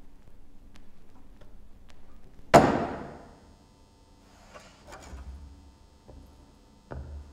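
One sudden, loud thud that rings on for about a second, followed by soft scuffing and shuffling and a lighter thump near the end.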